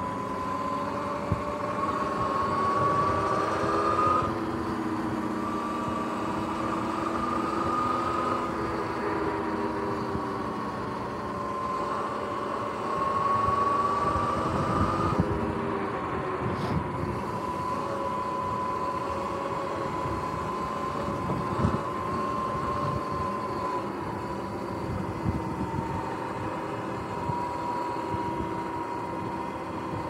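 Sur-Ron X electric dirt bike under way: a steady whine from its electric motor and belt primary drive, rising and falling in pitch as the speed changes, over wind and tyre noise.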